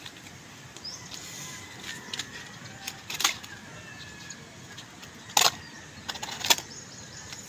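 A few sharp clicks and taps over a quiet outdoor background, loudest about five and a half and six and a half seconds in, as hands handle lettuce seedlings in plastic net cups set in a foam hydroponic board.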